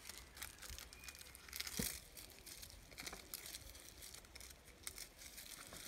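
Faint rustling and crinkling of fingers pulling apart and fluffing up a cotton wool ball for tinder, with a light knock about two seconds in.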